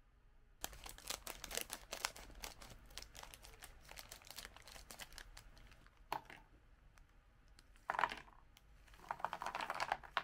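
Plastic snack bag crinkling and crackling as it is pulled open by hand. Near the end come louder rustles as the puffed snacks are shaken out of the bag onto a plate.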